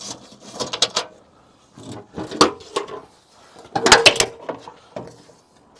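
Damaged front wing of an Audi A6 C7 being pulled and worked loose by hand: a few short clunks and scrapes of the body panel, the loudest about four seconds in. The wing is still caught, held by a bracket that is still bolted on.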